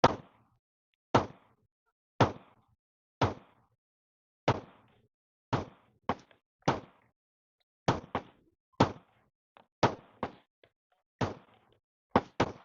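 Glock 29 Gen 4 pistol firing 10mm Auto rounds: a string of sharp gunshots, about one a second, with a quick pair near the end.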